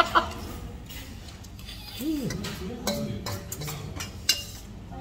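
Metal spoon clinking and scraping against a stainless steel bowl during eating, with a few sharp clinks, the loudest about four seconds in.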